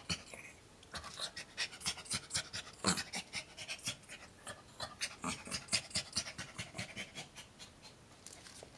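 Small dog panting rapidly close up, in quick short breaths, several a second, while it plays.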